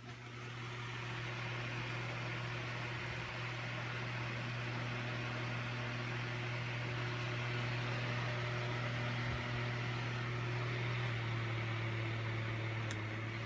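Electric fan switched on, rising to speed over about a second, then running steadily with an even airy whoosh and a low hum.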